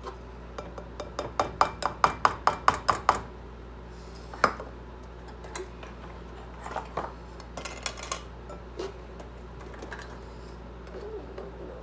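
Kitchenware clinking: a quick run of about a dozen sharp taps, about five a second, over the first three seconds, then scattered single knocks and clinks.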